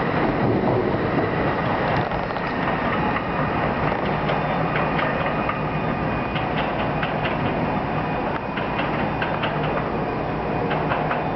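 NJ Transit multilevel passenger train pulling away: the rumble of its last cars passing, then a run of irregular clicks from its wheels crossing rail joints as it moves off down the track.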